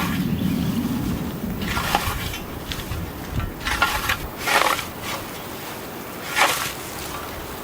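European scythe blade swishing through tall grass and weeds, about six uneven strokes, with wind rumbling on the microphone.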